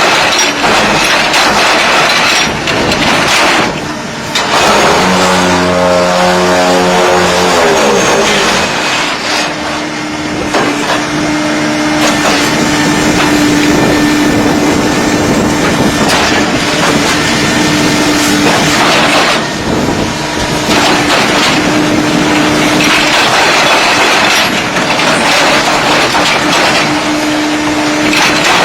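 Concrete block making machine running loudly, a continuous mechanical rattle with a steady hum through it. About five seconds in, a pitched motor sound falls in pitch over a few seconds.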